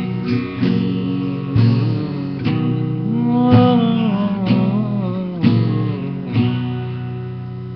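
Acoustic guitar strummed, one chord roughly every second, the notes ringing on; the last chord rings out and fades away near the end.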